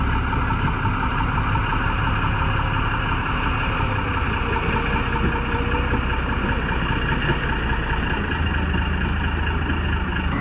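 Engine of a tracked all-terrain vehicle running steadily under load as it pushes through broken ice and water.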